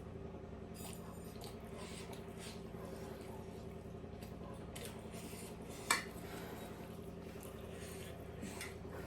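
Quiet eating and tableware sounds over a steady low hum, with one sharp clink of a dish or glass about six seconds in.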